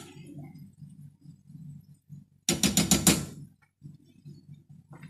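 A cooking spoon rapped against a frying pan of onions, making a quick burst of about six sharp clacks in under a second. Under it runs a low, steady rumble.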